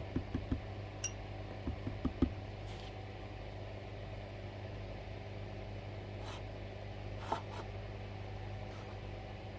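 A few soft, short knocks in the first couple of seconds as a knife is worked on a two-grit sharpening stone, then a couple of faint ticks later, over a steady low hum.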